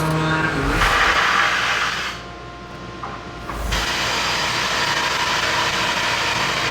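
A handheld power tool running on wood, dropping away for about a second and a half at around two seconds in, then running steadily again.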